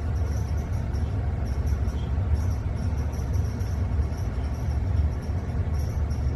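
Steady low rumble with no clear events, with faint high ticks repeating over it.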